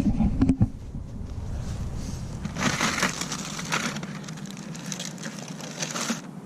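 Crunching and rustling: a few sharp cracks about half a second in, then a dense stretch of crackling from about two and a half to six seconds.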